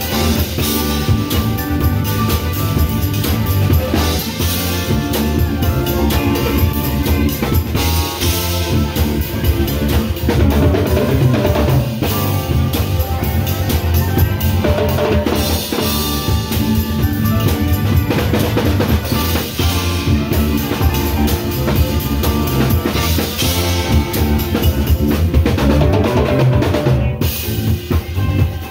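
Live band music with percussion to the fore: timbales, cymbals and drums struck in a busy rhythm, heard from beside the percussion setup.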